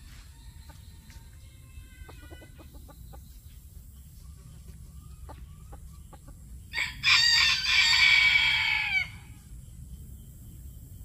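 Bantam Phoenix rooster crowing once: a brief first note, then one long crow of about two seconds that drops in pitch at the end. Fainter short bird calls and light clicks come a few seconds earlier.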